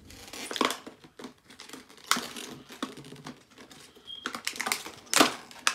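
Stiff clear plastic packaging crinkling and cracking as a toy canister's lid is pried and pulled open, in irregular clicks and crackles with a few sharper cracks, the loudest about two seconds in and just after five seconds.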